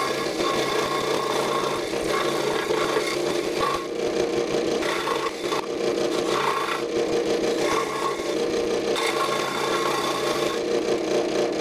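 Scroll saw running steadily, its reciprocating blade cutting a wooden board along a curved pattern line, the sound of the cut shifting slightly every second or two as the workpiece is fed and turned.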